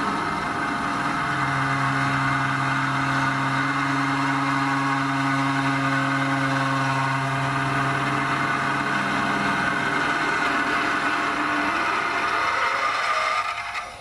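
Vintage lathe running while a 15.5 mm tapered drill bit is fed from the tailstock into the spinning workpiece: a loud, steady drilling sound. A low hum rides on it for much of the time, and the drilling stops shortly before the end.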